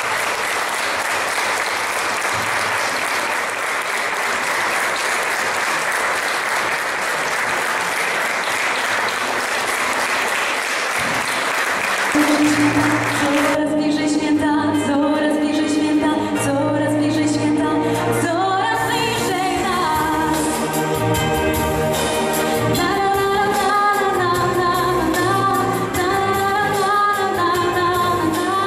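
Audience applauding for about the first thirteen seconds, then music with singing starts and carries on.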